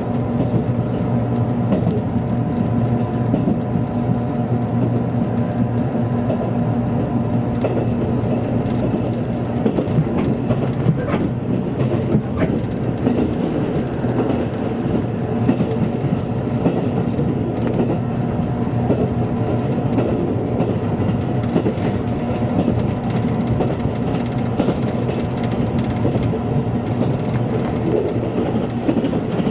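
Running noise of an express train at speed, heard from inside the passenger car: a steady rumble with a constant hum and a few clicks from the wheels on the rails.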